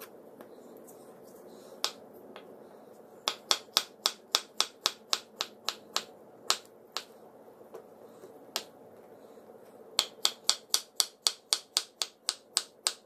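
A knife slicing through avocado and striking a wooden cutting board: two quick runs of sharp taps at about four a second, one a few seconds in and another near the end.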